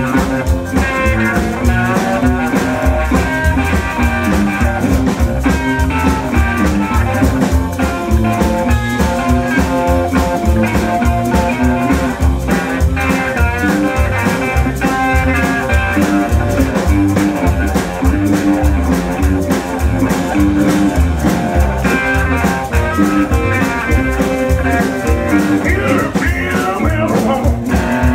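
Live blues band playing: electric guitars and an upright bass over a steady beat.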